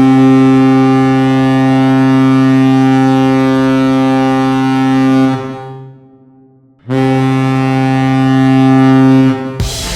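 Vegas Golden Knights 2017-18 arena goal horn sounding two long, deep blasts: the first lasts about five seconds and dies away in a long echoing fade, the second about three seconds. The goal song's music cuts in right at the end.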